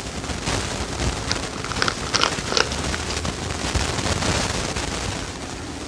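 Close-mic eating sounds: wet chewing and lip-smacking clicks while eating a pasta bowl, with a few short high squeaks about two seconds in.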